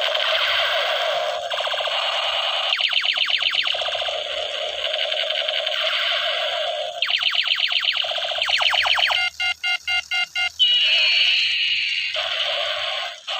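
Battery-powered toy M16 light gun playing its electronic sound effects through a small speaker. Tinny looping tones come with bursts of rapid repeated sweeps like machine-gun fire, then a stretch of pulsed beeping about nine seconds in, about six beeps a second, and a falling tone.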